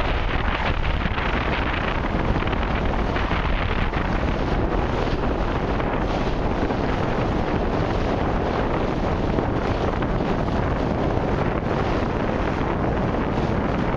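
Wind buffeting the microphone over choppy sea water: a steady, dense rush of noise, heaviest in the low end, that never lets up.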